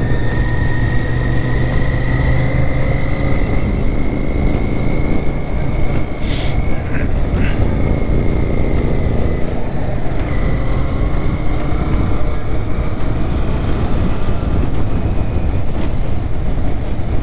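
Royal Enfield Interceptor 650's parallel-twin engine running under way, with heavy wind rush on the microphone. The engine note climbs gradually over the first several seconds, and a few short clicks come in the middle.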